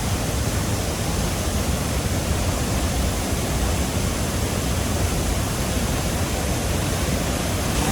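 Water of a large waterfall rushing steadily: an even, unbroken hiss.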